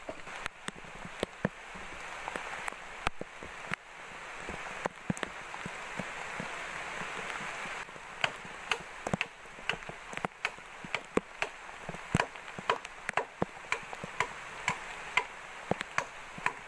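A blade chopping green bamboo: sharp strikes, scattered at first, then coming steadily about twice a second through the second half. Under them runs a steady hiss.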